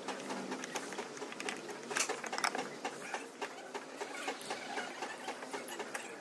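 Parts of a stripped-down alternator, its stator and metal housing, clicking and scraping against each other as they are handled: a busy run of irregular light clicks, loudest about two seconds in.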